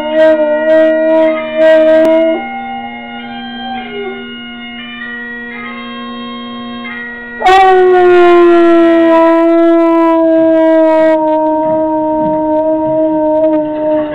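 Bagpipe music playing from a television, a steady drone under a chanter melody, with a Doberman howling along to it. About halfway in, one long, loud howl starts and slides slowly down in pitch until near the end.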